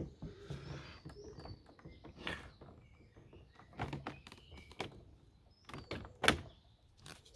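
Plastic hose and handle parts of a Dyson DC04 upright vacuum cleaner being unhooked and handled: scattered clicks, knocks and rubbing, with the sharpest knock about six seconds in.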